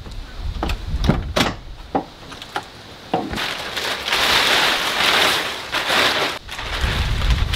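A few sharp knocks as the minivan's rear seats are handled, then clear plastic sheeting crinkling and rustling loudly as it is unfolded and spread over the cargo floor, from about three seconds in.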